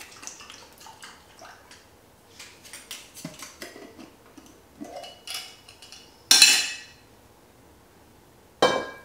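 Glass mason jar of vinaigrette being shaken and handled, with light rattling and clicking of the jar and its metal lid. Two louder, sharper clinks follow, about six seconds in and again near the end.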